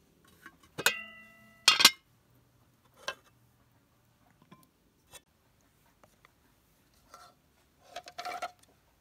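Dishes clinking: a ringing clink of glass or china about a second in, then a louder clatter, followed by light taps and a short rattle near the end.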